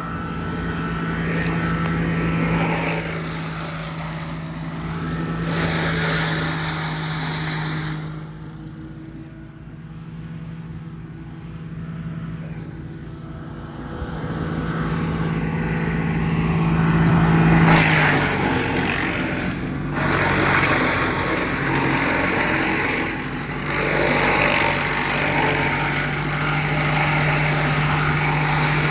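Crytec wood chipper's small engine running steadily, with several spells of louder rushing noise, the longest about a fifth of the way in and another about two thirds of the way in.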